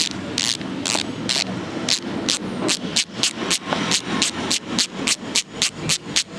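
Weapon Hammer ratchet-type bicycle hub freewheeling, its ratchet giving single sharp clicks that come faster as it goes, from about two a second to about four a second. The clicking is not very loud, with a stony, knocking tone.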